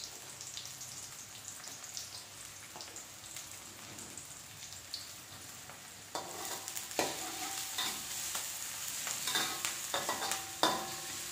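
Sliced onions sizzling faintly in oil in a steel wok. About six seconds in, a metal spatula starts stirring the onions and crushed garlic, scraping and clinking against the pan.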